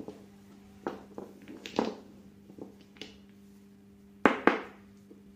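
Small paint bottles being knocked together and set down one by one on a paper-covered tabletop: a series of light knocks, with two louder ones close together near the end, over a faint steady hum.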